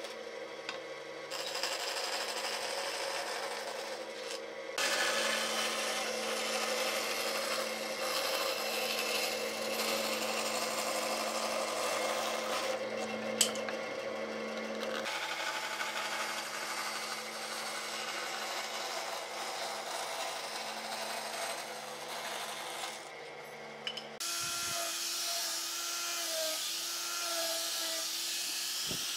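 Band saw running and cutting a curve through a wooden board: a steady motor hum with the hiss of the blade in the wood. About 24 seconds in it gives way to an angle grinder with a sanding disc running, a wavering whine.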